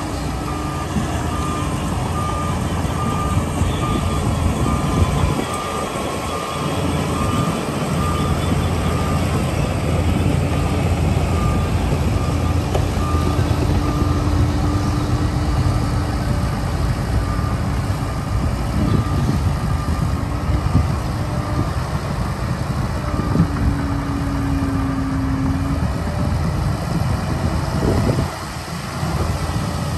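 Heavy dump truck's diesel engine running under load while its tipper bed is raised and the soil is dumped, with a warning beeper repeating a high beep again and again until it fades out in the latter part.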